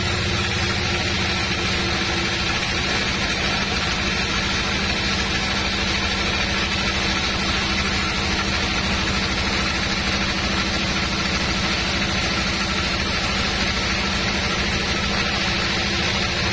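Sawmill band saw running steadily through a teak log, a constant machine drone with a hiss from the cut and no let-up.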